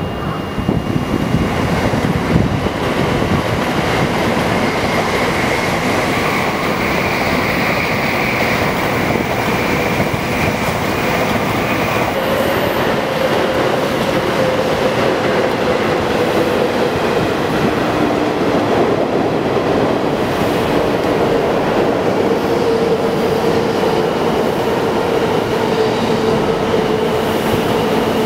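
Shinkansen trains running past at low speed: a steady rumble of wheels on rail and running gear. A high whine rises over it about six seconds in and fades near twelve seconds. Then a lower steady tone carries on as the next train passes.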